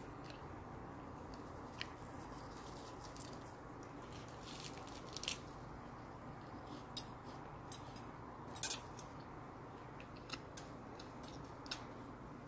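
Chewing a mouthful of crisp grilled mackerel: a scatter of short, sharp crackly clicks, most of them in the second half, over a low steady hum.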